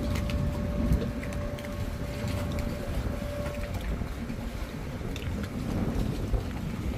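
Wind buffeting the microphone over the low rumble of a motorboat, with a steady hum that stops a little past halfway.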